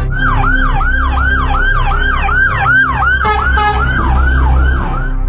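Fire truck's siren on a fast yelp, its pitch sweeping up and down about two and a half times a second as the truck passes close by, over the low rumble of its engine.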